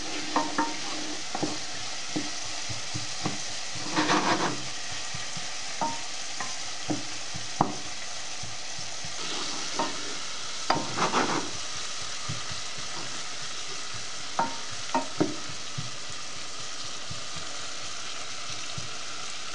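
Sliced onions frying in olive oil in a metal pot, a steady sizzle, while a wooden spoon stirs them and knocks against the pot at irregular moments, with two busier bursts of stirring and only the sizzle left near the end.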